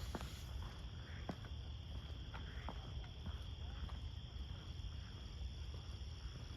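Faint outdoor ambience: a steady high-pitched insect chorus over a low rumble, with a few short faint chirps scattered through.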